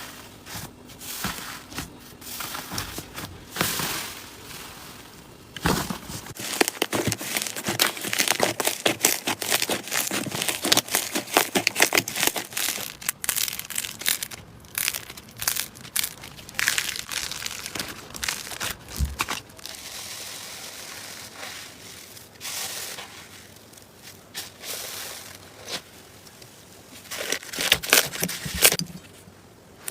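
Slime being squeezed, pressed and poked by hand, giving a run of many small, irregular crackles and clicks.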